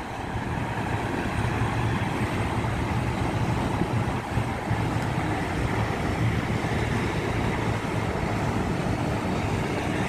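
Steady road traffic noise from a busy main road: a continuous low rumble of passing vehicles.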